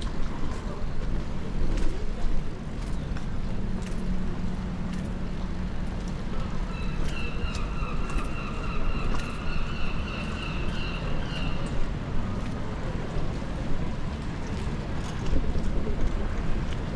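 City street ambience in the rain: a steady rumble of traffic, scattered sharp ticks, and a high steady whine from about seven seconds in to about eleven and a half.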